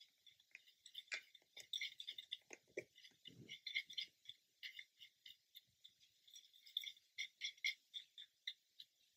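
A thin mixing tool scraping and tapping in a plastic paint palette while weathering powder is stirred, giving many light, irregular clicks and scratches, several a second, with a short rustle of the powder pot being handled about three and a half seconds in.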